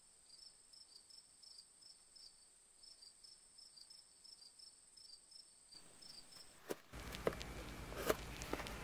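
Faint night insects: a steady high-pitched trill with cricket chirps over it, about three or four chirps a second. The insects stop about seven seconds in, and light clicks and taps of a cardboard box being handled follow.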